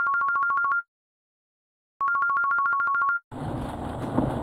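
Electronic telephone ringtone sound effect: two rings of about a second each, a rapid trill between two high tones, with a second of silence between them.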